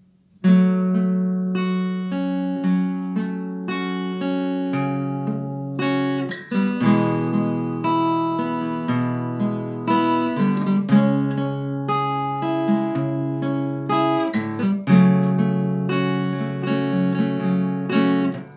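Acoustic guitar played with a pick, chords picked and strummed, starting about half a second in.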